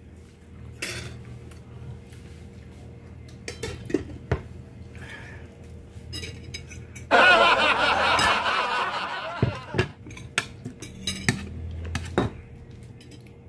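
Spoon and plate clinking and tapping as a second scoop of rice is served onto a plate. There is a loud rustling noise lasting about three seconds midway.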